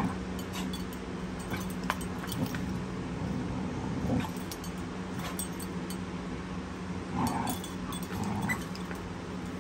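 Puppies and an adult dog play-fighting, with a few short puppy yips and whimpers late on and scattered clicks and scuffles, over a steady low hum.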